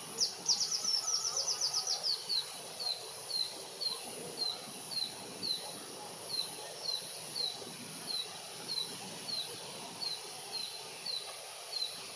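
A bird calling: a fast rattling run of falling chirps for the first two seconds, then short falling notes repeated about twice a second, over a steady thin high insect-like hum.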